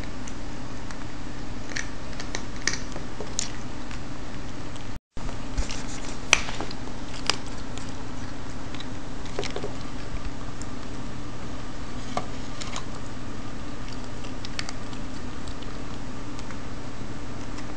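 Scattered light pats and clicks as cats dab at treats floating in a water-filled plastic tub, over a steady low hum.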